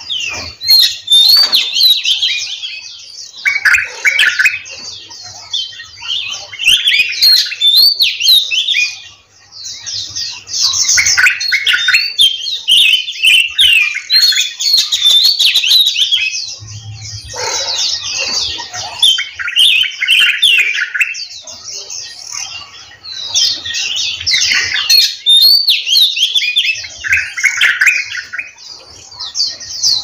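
Several caged songbirds singing and chirping together, a dense overlapping chorus of quick, repeated warbling phrases, with a short lull about nine seconds in.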